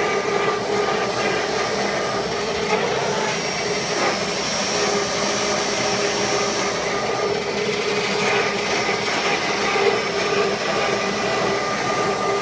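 48-volt DC electric motor (ME1004) of a converted riding mower running steadily under throttle: an even electric whine of several steady tones over a mechanical hiss.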